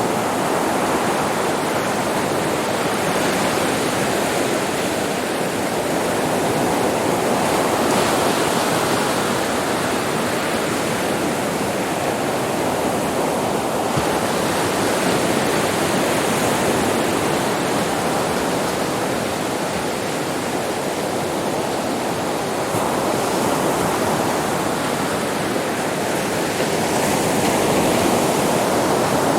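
Sea waves breaking on a beach: a continuous wash of surf that swells and eases slowly every several seconds.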